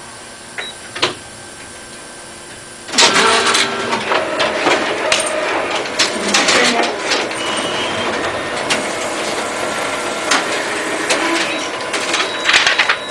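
Office photocopier running a copy cycle: it starts with a jump in level about three seconds in, then runs steadily with many clicks and knocks. Two short clicks come before it starts.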